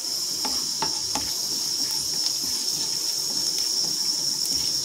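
Cumin seeds sizzling and crackling in hot oil in a nonstick kadhai, a steady hiss with scattered small pops, as a spatula stirs them.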